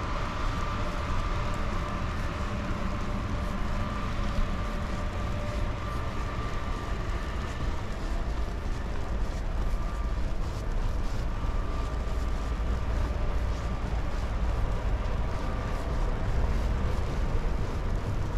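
Steady low vehicle rumble with a faint high whine that comes and goes.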